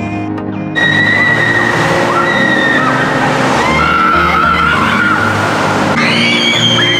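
Inner tube carrying riders down a water slide: a loud wash of rushing, splashing water starts suddenly about a second in, with high-pitched squealing over it. Background music plays underneath.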